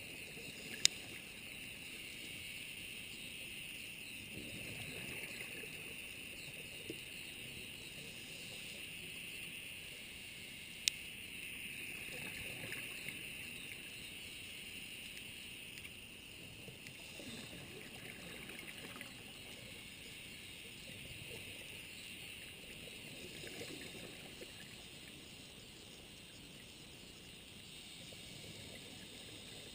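Underwater sound on a scuba dive: a steady crackling hiss of the reef, with the diver's exhaled regulator bubbles rumbling every five or six seconds. Two sharp clicks stand out, one about a second in and one about eleven seconds in.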